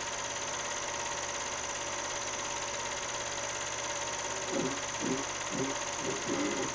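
Steady hum and hiss from the transfer of a silent home movie, with a run of short, low pitched notes at about two a second starting about two-thirds of the way through.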